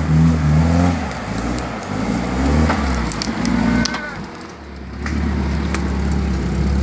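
Off-road 4x4's engine revving under load as it crawls up a rutted dirt trail, easing off in the middle with a few sharp crackles, then running steadily at low revs near the end.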